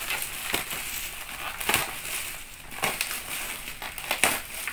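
Scissors cutting through taped plastic bubble-wrap packaging, the plastic crinkling throughout, with four sharp clicks about a second apart.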